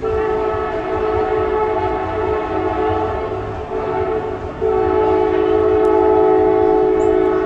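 A loud horn sounding a chord of several steady notes in two long blasts, the second starting about four and a half seconds in and louder than the first.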